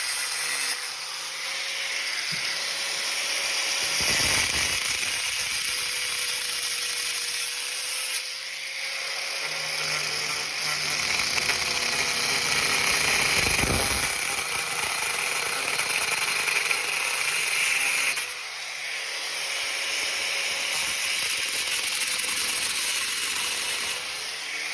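Handheld power cutting tool running continuously and cutting into the floor around a cast iron toilet flange. It runs at a steady pitch that wavers slightly and eases off briefly twice, about eight and eighteen seconds in.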